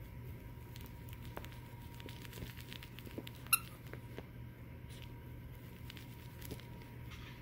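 A puppy tussling with a plush toy on a blanket: soft rustling, scratching and light taps, with one short high squeak about three and a half seconds in.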